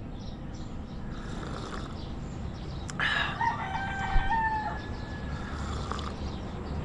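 A rooster crows once, starting about three seconds in, in a single call lasting nearly two seconds. A brief knock comes partway through the crow, over a steady low rumble.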